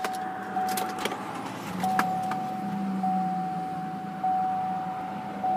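Dashboard warning chime of a 2018 Chevrolet Colorado ZR2 repeating about once every 1.2 seconds over the steady idle of its V6 engine. A few sharp clicks sound in the first two seconds.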